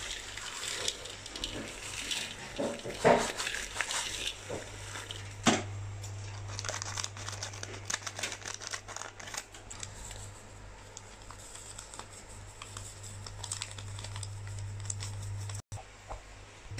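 Thin plastic sachets crinkling and rustling as they are handled and snipped open with scissors, with irregular sharp clicks and taps over a steady low hum.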